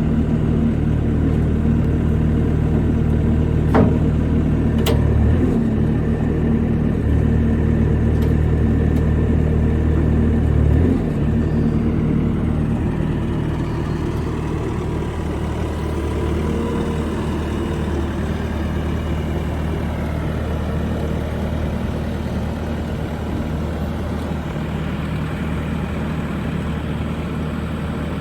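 Bobcat S550 skid-steer loader's diesel engine running, with two sharp clicks about four and five seconds in. The engine note drops around eleven seconds in, and it runs a little quieter and steadier after that.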